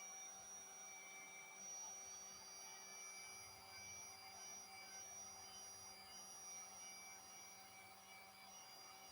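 Heat gun running steadily: a faint, even whine of several fixed pitches over a soft hiss.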